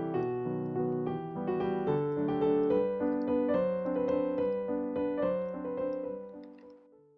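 Background piano music, a run of single notes that fades out near the end.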